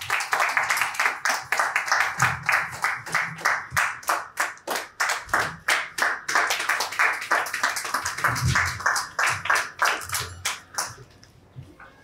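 Clapping in a fast, even rhythm, about five claps a second, dying away about eleven seconds in.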